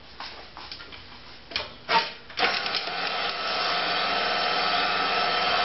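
Electric stand mixer with a meat grinder attachment, set to grind rabbit meat: a few light clicks, then the motor switches on about two seconds in and runs steadily with an even whine.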